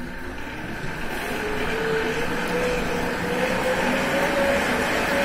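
Wattbike indoor trainer's flywheel and air fan whirring as it is pedalled, a steady whine that comes in about a second in and rises slowly in pitch over a rushing hiss.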